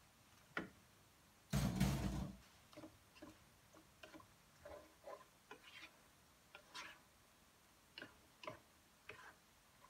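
Wooden spatula tapping and scraping against a cooking pot as boiled pasta is stirred and folded into a thick cheese sauce: a series of small irregular knocks, with one louder clatter about a second and a half in.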